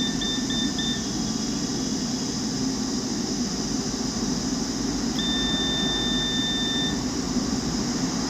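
Multimeter continuity beeper sounding: a quick run of four short beeps, then one steady beep of nearly two seconds about five seconds in, the tone a meter gives when its probes find a conducting path.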